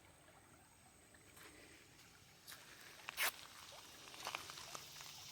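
Quiet outdoor background, then a person's footsteps and rustling starting about halfway through, with one brief louder scrape or swish a little past halfway, and the steps getting denser near the end.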